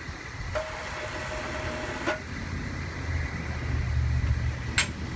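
Low engine idle rumble, stronger in the second half. From about half a second in comes a steady hiss with a single tone, cut off by a click after about a second and a half. A sharp metallic clank near the end is the loudest sound.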